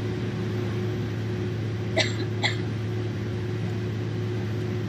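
Steady low drone of a Boeing 767-300ER's jet engines and cabin, heard from inside the cabin while taxiing. Two short, sharp sounds about half a second apart break in about two seconds in.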